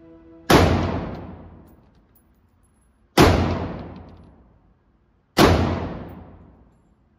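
Three single shots from an AR-style rifle, about two to three seconds apart, each with a long echoing decay in the enclosed indoor range.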